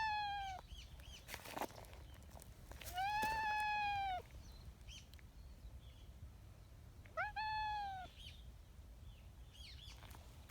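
Brown tabby cat meowing: three long, high-pitched, husky meows about three to four seconds apart, the first already under way at the start.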